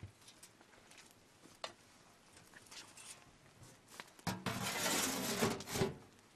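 A flat aluminium lid scraped and clattered onto the rim of a large aluminium cooking pot about four seconds in, lasting about a second and a half. Faint scattered ticks come before it.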